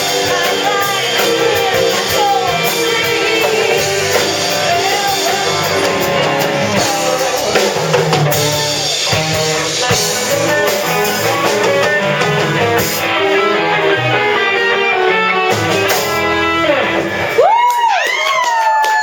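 Rock band playing a song with guitars, a drum kit and singing, with a few high sliding pitch bends near the end.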